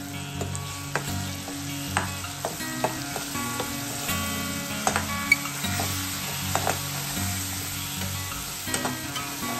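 Green herb paste sizzling in hot oil in a non-stick kadhai while a slotted metal spoon stirs it, with sharp clicks and scrapes of the spoon against the pan throughout.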